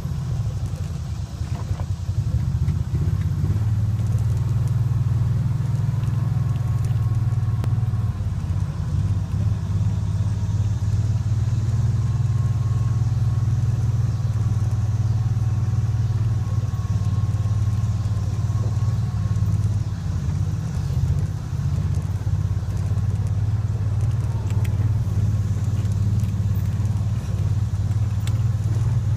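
Off-road vehicle's engine running steadily with a low drone as it drives over grassy, rutted ground.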